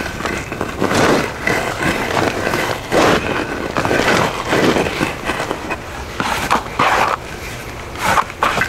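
A wooden dowel being forced down into potting soil in a large plastic nursery pot: a series of rough, irregular scraping strokes of wood through soil, as a groove is dug out for the stake.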